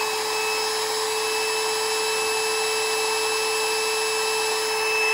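AC router motor, used as a CNC spindle, running steadily at a commanded 25,000 RPM, measured at about 26,000 RPM, under an Arduino zero-cross-detection speed controller. It makes a steady high whine over a rushing hiss.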